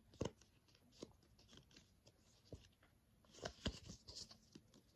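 Faint clicks and rustling from a Pokémon booster pack and its cards being handled, with a short run of crinkly rustles about three and a half seconds in.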